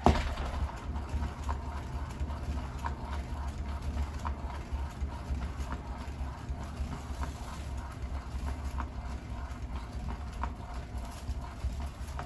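Turntable spinning a paint-covered canvas: a steady low rumble with a light click repeating about every second and a half.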